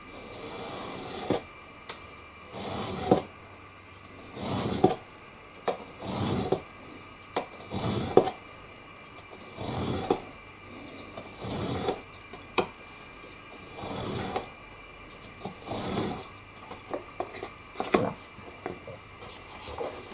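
Utility-knife blade scraping through framing board along a heavy steel ruler in about ten strokes, roughly one every two seconds. These are several light passes rather than one hard cut, so the blade does not slip.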